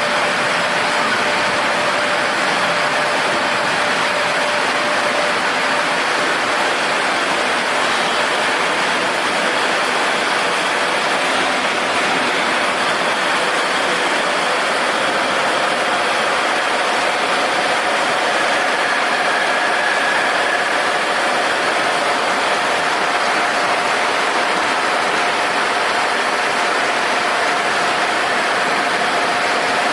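Steady machine noise, a continuous rushing hum with faint steady tones in it and no change in level.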